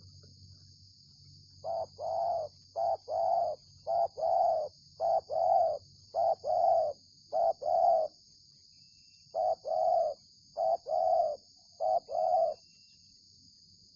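Spotted dove (terkukur) cooing: a run of six two-part coos, each a short note followed by a longer one, then a short pause and three more.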